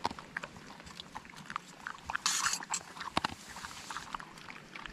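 Dog eating kibble from a hand-held collapsible silicone bowl: irregular crunching and small clicks of chewing, with a short, louder rustle a little over two seconds in.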